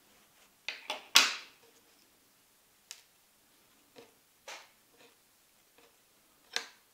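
Hand embroidery: a needle piercing a stiff, fabric-covered medallion and metallic thread being drawn through, heard as a string of short, irregular clicks and rustles. The loudest is a scratchy rustle about a second in, as the stiff piece is turned over in the hand.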